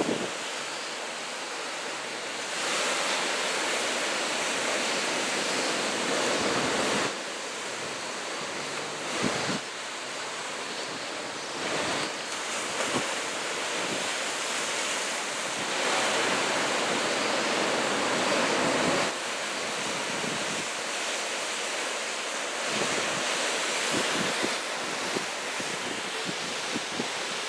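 Ocean surf from a typhoon swell breaking on the shore: a steady rush of water that swells louder for several seconds at a time as sets of waves break, with wind buffeting the microphone.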